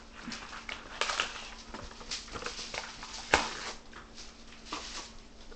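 Plastic packaging and a small cardboard toy box being handled and opened, with irregular crinkling and rustling and a sharp click about three and a half seconds in.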